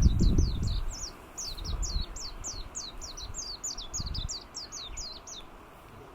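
Japanese white-eye singing: a fast, continuous run of high, sliding notes, about four a second, that stops near the end. A low rumble is loudest in the first second.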